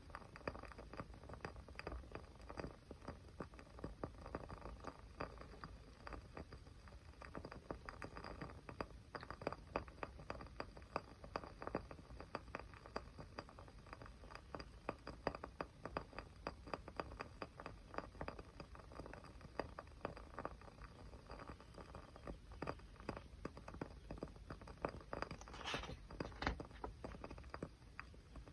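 Small fire crackling with a dense, irregular run of quiet pops and snaps, and a brief flurry of louder snaps near the end.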